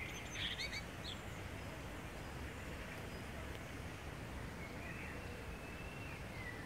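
Blackbird calling: a few short, sharp calls in the first second, then a faint whistled, wavering phrase near the end, over steady outdoor background noise.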